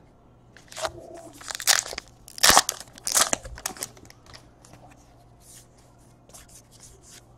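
Foil wrapper of a trading-card pack being torn open and crinkled: several sharp rips and crackles in the first half, then faint clicks of cards being handled.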